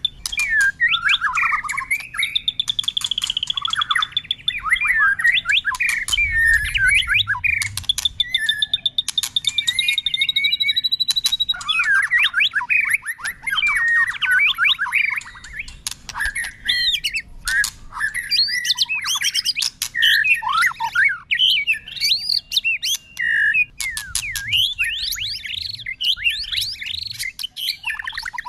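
White-rumped shama singing a long, unbroken song that keeps switching phrases: sliding whistles, fast trills, a few held high notes and sharp clicking notes.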